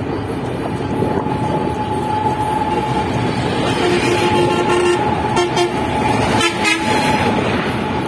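Passenger train running with a steady rumble and a thin steady whine. A horn sounds about four seconds in and holds for nearly two seconds, followed by a few short toots.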